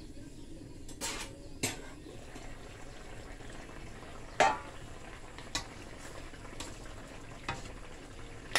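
Stainless-steel pan lid lifted off and set down with a series of sharp metal clinks, the loudest with a short ring about four and a half seconds in, then a metal spoon clinking against the pan as the stew is stirred. Brown stew fish simmers steadily underneath.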